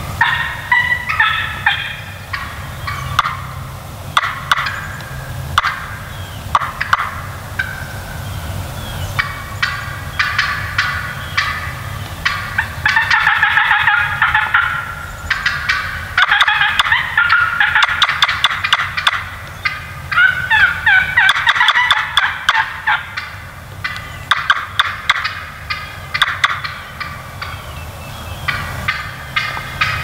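Wild turkeys gobbling: one rapid, rattling gobble after another, with several running together around the middle.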